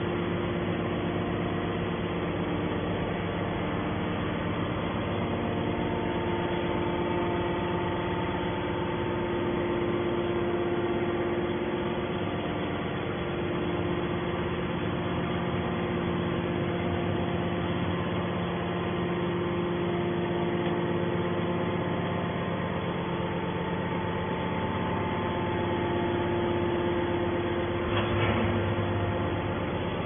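Hydraulic scrap metal baler's pump unit running with a steady machine hum carrying several steady tones. There is a brief thump near the end.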